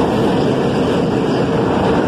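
R68 subway train running past close to the platform: a loud, steady noise of steel wheels on the rails and the running gear, with no breaks or sudden sounds.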